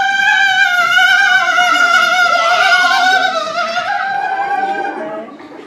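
A woman's voice holding one long, loud, high note like an operatic cry, wavering slightly and fading out near the end.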